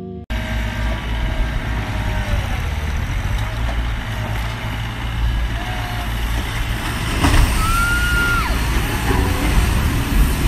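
Steady low rumble and outdoor noise as a steel shrimp-boat hull slides sideways on inflatable airbag rollers in a side launch, growing somewhat louder about seven seconds in. A brief high whistle-like tone rises and falls about seven to eight seconds in.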